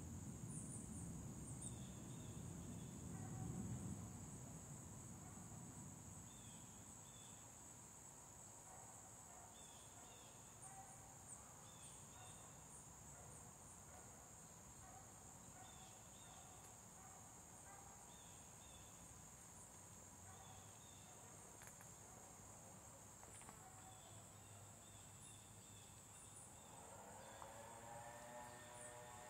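Faint outdoor ambience: insects buzzing steadily and high, with short bird chirps every couple of seconds. A low rumble fades away over the first few seconds, and near the end a small engine, a leaf blower, starts up and rises in pitch.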